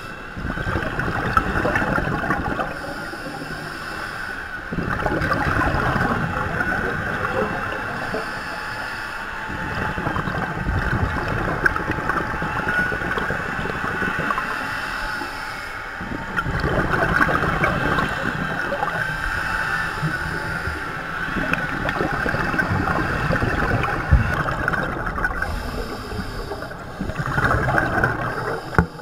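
Scuba regulator breathing heard underwater: surges of bubbling exhalation every few seconds over a steady hiss.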